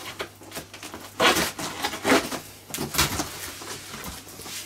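A large cardboard box being opened: its flaps and packing tape rustling, scraping and crackling in irregular strokes, the strongest about a second in and again near two seconds in.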